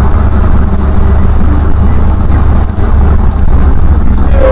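Steady low rumble of a car driving at highway speed: engine and road noise inside the cabin, picked up by a dashcam.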